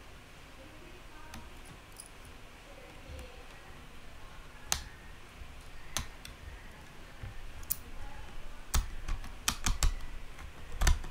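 Small screwdriver and retaining screw clicking and tapping against an M.2 NVMe SSD and laptop mainboard as the SSD is screwed down. The clicks are sparse at first, then come quickly in a cluster near the end.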